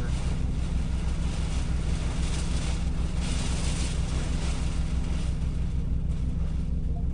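Strong storm wind blowing in gusts, the hiss swelling twice in the first four seconds, over a steady deep rumble.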